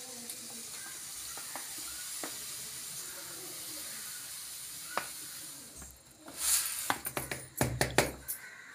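Loose tea granules pouring in a steady trickle from a plastic packet into a glass jar. About six seconds in, the plastic packet crinkles loudly in a run of sharp crackles as it is handled.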